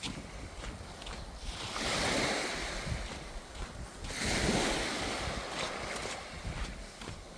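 Sea waves breaking and washing up a beach, swelling twice, about two seconds in and again a little after four seconds, with wind buffeting the microphone.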